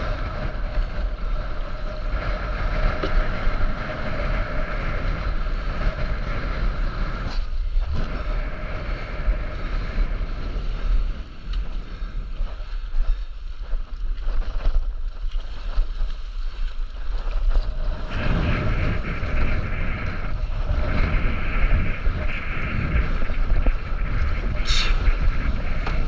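Wind rumbling on the microphone of a camera riding on a stand-up paddleboard on open sea, with water splashing around the board. Under it runs a steady hum that fades for several seconds midway and returns.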